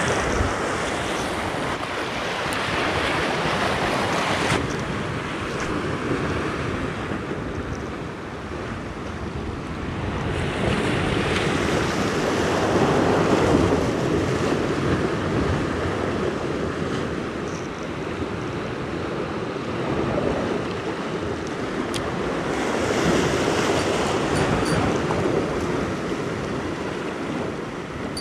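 Sea waves washing and breaking against shoreline rocks, a steady surf noise that swells louder and eases off in slow surges every several seconds.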